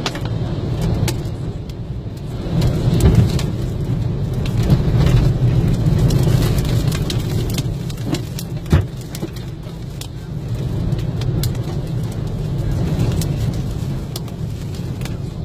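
Tornado-force wind and rain buffeting a car, heard from inside the cabin: a low rumble that swells and eases in gusts, with scattered hits of rain and debris on the bodywork and windscreen. One sharper knock about nine seconds in.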